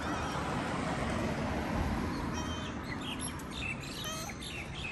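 Small birds chirping in short high calls from about halfway through, over steady low background noise. About four seconds in, a calico cat gives a short meow.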